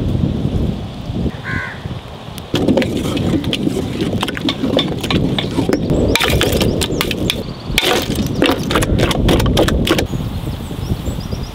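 Wind rumbling on the microphone outdoors, with a run of sharp cracks and knocks through the middle as blocks of ice are handled and dropped into a large aluminium pot of banana milkshake; the cracking stops near the end.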